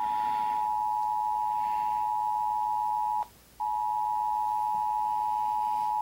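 Mobile phone emergency alert tone: a steady, piercing tone held for about three seconds, cut by a short gap, then held again.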